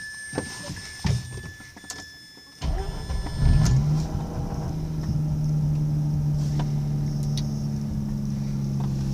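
2005 Mazda RX-8's two-rotor Renesis rotary engine cranking and catching about two and a half seconds in, flaring up briefly, then settling into a steady idle. The idle is smooth, with no rough running, on a start after the car has sat for a day and a half. Before the start there is a faint steady high whine with the ignition on, and a few clicks.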